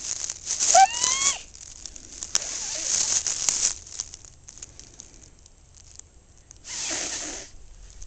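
Rustling and handling noises, with a short high-pitched rising squeal about a second in.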